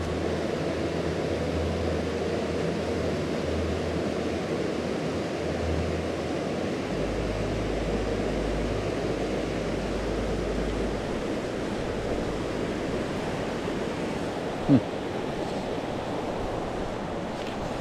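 Mountain creek water rushing steadily over rocks and a small waterfall. A short squeak slides down in pitch about three-quarters of the way through.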